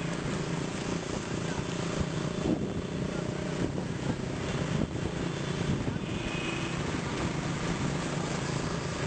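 Motorcycle engines running steadily as a group of motorbikes rides along together, a continuous low drone.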